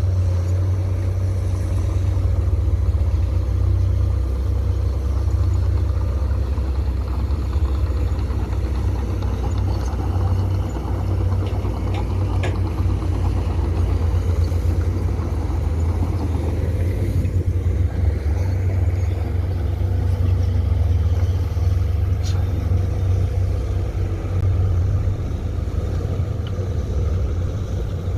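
Komatsu PC200 hydraulic excavator's diesel engine running steadily under load, a deep rumble with a few sharp metallic clanks.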